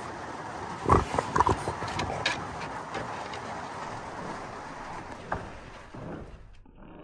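Steady rain falling, with a few short, loud thuds about a second in and one more a little past five seconds. The rain fades out about six seconds in.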